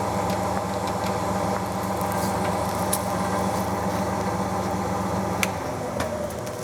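Clausing 20-inch variable speed drill press with a 1½ hp three-phase two-speed motor, running at full speed with a steady, smooth, quiet hum. Near the end the hum fades and drops in pitch as the machine begins to wind down.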